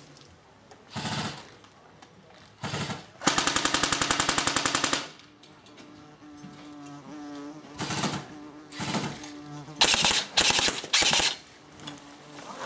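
Airsoft rifle firing full-auto: one burst of rapid, evenly spaced shots lasting about a second and a half, starting about three seconds in, then three or four short bursts near the end, with a few single short bursts between.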